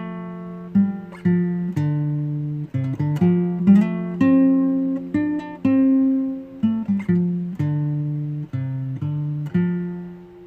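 Acoustic guitar music: picked notes and chords, a new one about every half second, the last chord ringing out and fading near the end.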